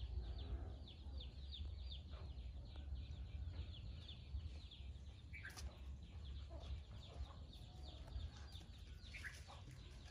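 Chickens in a farmyard: a steady run of short, high peeping chirps, about four a second, with a few lower clucks, over a low rumble.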